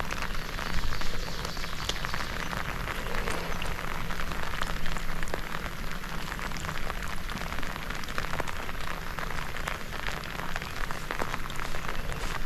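Steady rain falling, an even hiss with many small drop ticks throughout.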